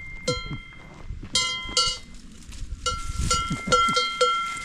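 Alpine cowbells worn by grazing cows, clanking irregularly with metallic ringing tones, several strikes in quick succession near the end.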